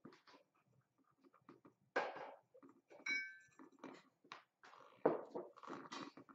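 Short scratchy rubbing strokes of a fine-grit polishing stone on the lacquered seams of a porcelain plate, with a brief ringing clink about three seconds in. Near the end, a tissue rubs over the plate.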